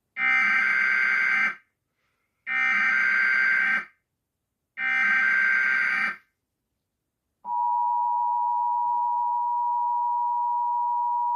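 Emergency Alert System tones. Three short bursts of digital SAME header data, each about one and a half seconds long, sound with short gaps between them. About seven and a half seconds in, the steady two-tone EAS attention signal begins and holds, marking the start of a tornado warning broadcast.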